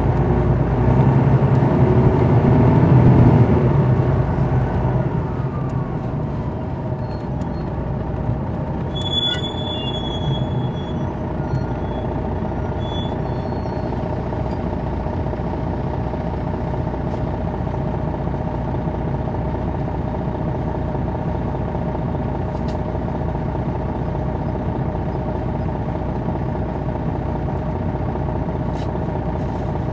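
2001 MCI D4000 coach's Detroit Diesel Series 60 engine running, heard from inside the bus. It is louder for the first few seconds with its pitch gliding, then settles into a steady idle. A brief high squeak comes about nine seconds in, with a few fainter ones just after.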